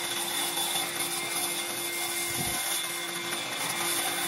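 Bandsaw running steadily without cutting, a constant whir with a steady hum from its motor and blade. One soft knock about halfway through.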